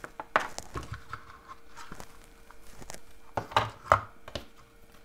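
Hands handling ribbon and a paper lantern on a craft mat: scattered small knocks, clicks and paper-and-ribbon rustles, busiest near the start and again about three and a half seconds in, over a faint steady hum.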